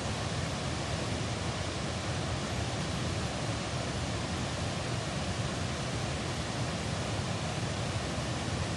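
Waterfall, water falling and rushing in a steady, unbroken noise.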